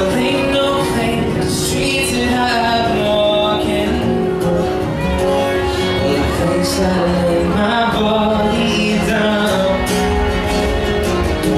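Live acoustic folk music: a man singing to a strummed acoustic guitar, with a fiddle playing along.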